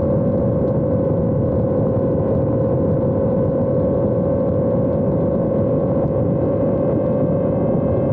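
Steady, unchanging whine of a small drone's electric motor and propeller, heard from its onboard camera, over a rush of wind noise on the microphone.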